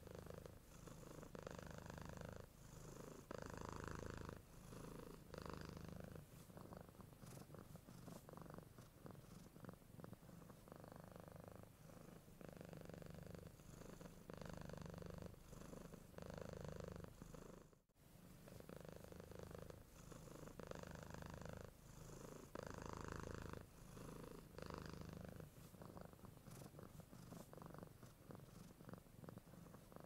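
Domestic cat purring quietly and steadily, swelling and fading with each breath about once a second. The sound cuts out briefly once, just past the middle.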